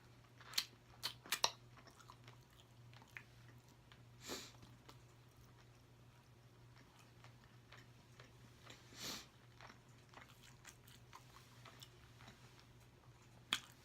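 Close-miked chewing and biting into a double bacon cheeseburger: a few sharp, crisp bite clicks about half a second in, then quieter mouth sounds with two softer swishing sounds later on. A faint steady low hum lies underneath.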